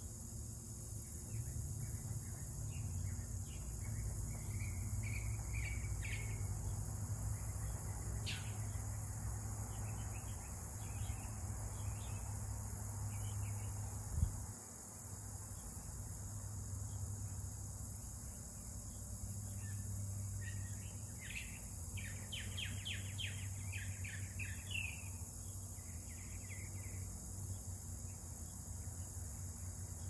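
Small birds chirping on and off, with a quick run of rapid chirps about two-thirds of the way through, over a steady high insect drone and a low background rumble. A single thump about halfway through.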